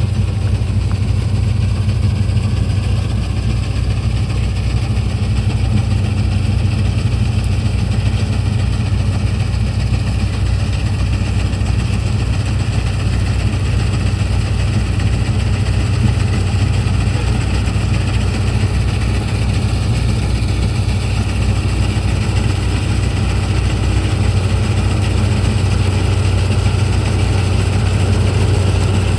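Combine harvester's diesel engine running at a steady speed: a constant low hum with a broad noisy rush above it.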